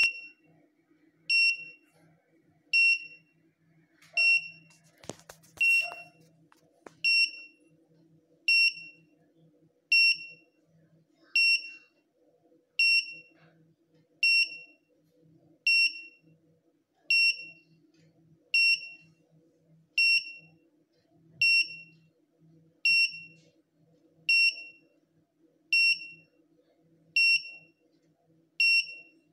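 Countdown beeper of a home-made airsoft prop bomb giving a short, high electronic beep about every 1.4 seconds while its timer counts down. A few brief knocks sound about five seconds in.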